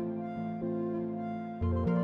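Background music: soft, held melodic notes, joined by a deep bass beat about a second and a half in.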